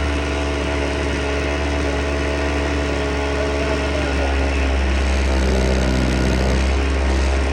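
Vintage Husqvarna 50 two-stroke chainsaw engine idling steadily, its tone shifting about two-thirds of the way through. The engine has low compression, about 80 PSI, after sitting for some 15 years, with the compression slowly improving as it runs.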